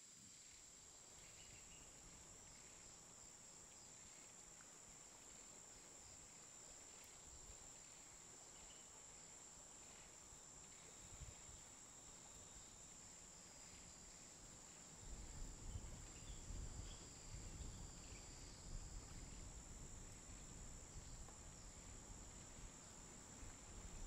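Faint, steady high-pitched insect drone in quiet open air. A low rumble comes in about halfway through and stays.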